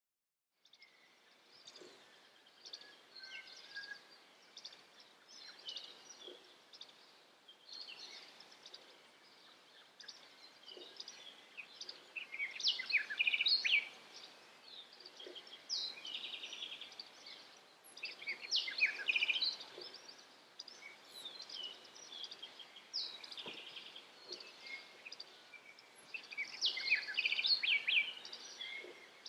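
Forest birds calling: many short, overlapping chirps and quick trills, coming in clusters that are loudest about halfway through and again near the end.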